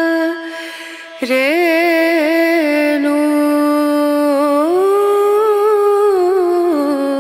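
Background music: a solo voice singing long held, wavering notes, dropping away briefly about half a second in, then rising in pitch around the middle and falling back near the end.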